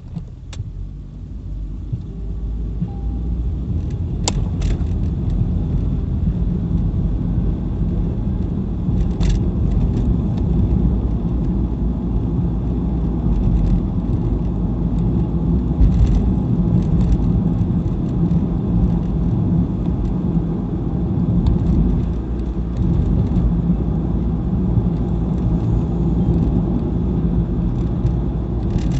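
Car driving, heard inside the cabin: a low engine and tyre rumble that builds over the first few seconds as the car gets up to speed, then holds steady. A few light clicks or rattles sound along the way.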